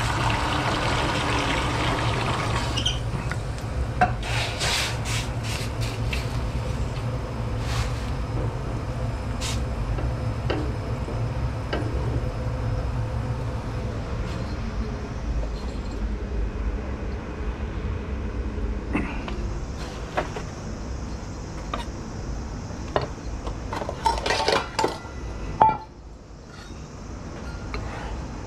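Pots, pans and utensils clinking and knocking in scattered bursts over a steady low hum, which stops near the end. In the first few seconds a soft hiss fits sliced garlic frying in olive oil in a small pan.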